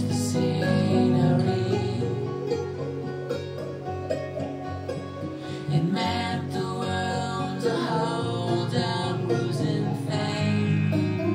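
Rock song played back through a pair of home-built full-range loudspeakers: an instrumental passage led by guitars, with no lead vocal.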